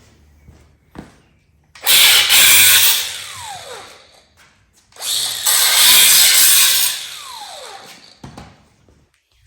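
A handheld power tool runs twice in short bursts, the first about a second long and the second about two. Each burst winds down with a falling whine after the trigger is released.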